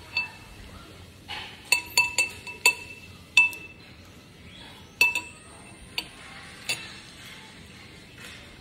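A metal spoon clinking against a dish that rings briefly with each knock, as dessert is scooped and eaten. There is a quick run of clinks about two to three and a half seconds in, then three more about a second apart.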